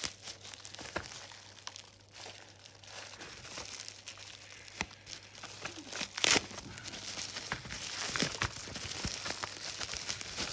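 Packaging being crumpled and handled: irregular crinkling and rustling with scattered crackles, and a louder rustle about six seconds in.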